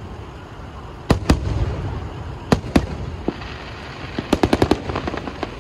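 Fireworks show: aerial shells bursting in two pairs of sharp bangs, each followed by a low rumble, then a quick run of about six sharp reports near the end.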